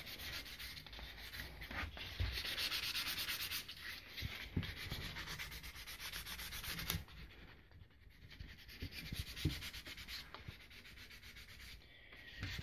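Fine sandpaper rubbed by hand over buffalo horn bow nocks: a rapid, steady rasping. It is louder in the first half and fainter in the second half.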